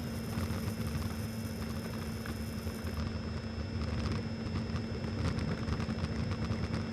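Onboard sound of a Freewing F-22 model jet rolling on the runway: a steady whine from its electric ducted fan at low throttle, over a low rumble and small rattles from the landing gear on rough asphalt.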